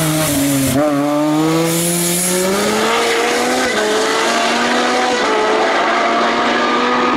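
Lotus Exige race car's engine accelerating hard away, its pitch climbing through the gears with a short drop at each of two upshifts, about a second in and near four seconds in.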